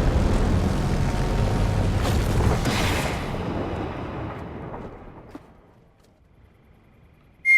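Explosion sound effect: a deep boom rumbling and fading away over about five seconds. Near the end a quick falling cartoon-style whistle begins.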